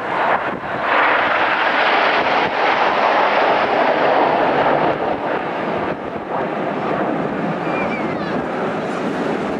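Jet noise from a formation of BAE Hawk T1 jets with Adour turbofans passing overhead: a loud, rushing sound that swells about a second in and eases off somewhat after about five seconds.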